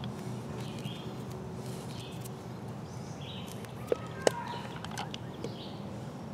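Handling noise as a spinning reel is fitted into a notch in a cane pole, with two sharp clicks close together a little under halfway through.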